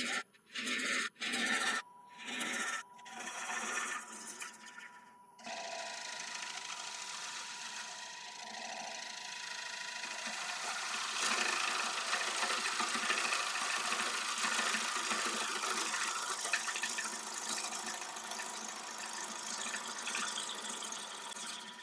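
Wood lathe running with a steady whine while a bowl gouge cuts a spinning applewood bowl: several short separate cuts at first, then one continuous cut from about five seconds in.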